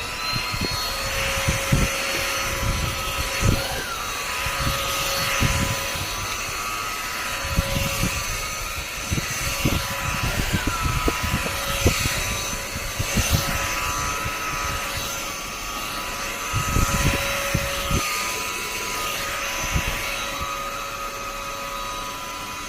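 Russell Taylors Vortex cordless stick vacuum's 500 W brushless motor running with a steady high whine over a rush of air. The pitch briefly rises a few times, and irregular low bumps and thuds run underneath.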